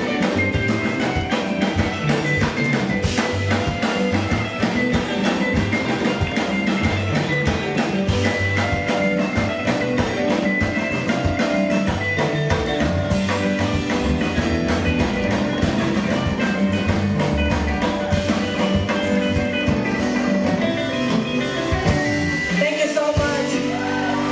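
Live band playing an afro-soul song, a drum kit keeping a steady beat under the other instruments; the bass briefly drops out near the end.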